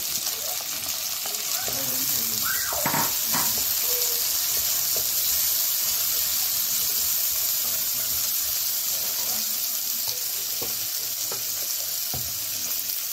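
Onions and chopped mixed vegetables frying in hot oil in a pan, giving a steady sizzle. A wooden spatula stirs them, with a few faint scrapes and clicks against the pan.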